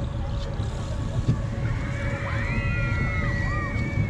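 Vekoma junior roller coaster train rolling along its steel track with a steady low rumble and wind on the microphone. High wavering squeals rise and fall over the rumble in the second half.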